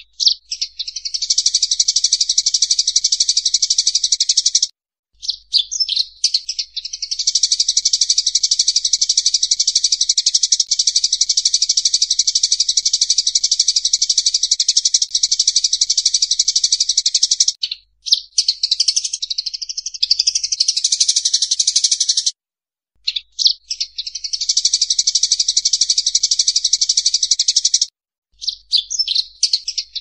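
Sparrows chattering as they fight: a dense, rapid, unbroken stream of high chirps, cut by a few short silences.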